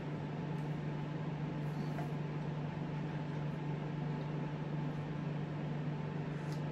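Steady low mechanical hum with an even hiss, unchanging throughout: an appliance or ventilation drone in a small room.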